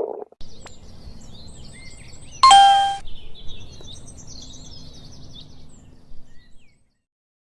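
Small birds chirping over a faint low steady hum, with a single loud bell-like ding about two and a half seconds in. The tail of a stomach growl is heard at the very start, and everything stops abruptly near the end.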